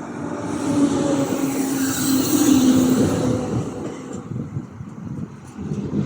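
Coupled Z20500 and Z8800 double-deck electric multiple units running in close by, loudest two to three seconds in, with a steady low droning tone and a hiss over the running noise, then easing off. The train is making an odd, unusual noise.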